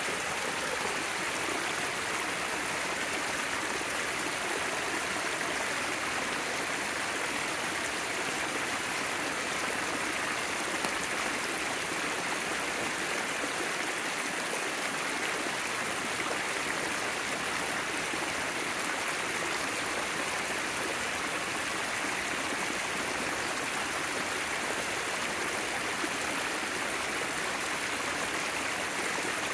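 Small mountain creek, running high after rain, rushing and splashing over a sloping rock ledge: a steady, unbroken sound of flowing water.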